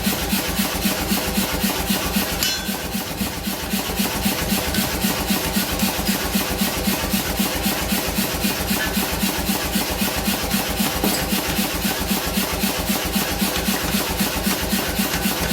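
A shop machine running with a fast, even rhythm of strokes, about five a second, over a steady hum. It eases briefly about two and a half seconds in.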